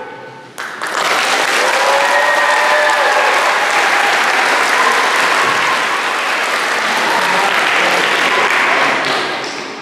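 Audience clapping and cheering after a child's song, starting suddenly about half a second in and dying away near the end, with a few voices calling out over it.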